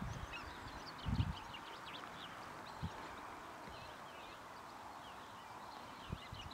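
Wild birds calling and chirping, with a steady outdoor hiss and a couple of low wind buffets on the microphone, the strongest about a second in.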